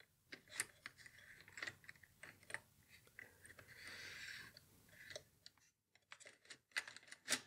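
Ballpoint pens and mechanical pencils clicking and clattering against one another as a hand shuffles them around in a cologne gift box. There is a soft sliding rustle about four seconds in and a sharper click near the end.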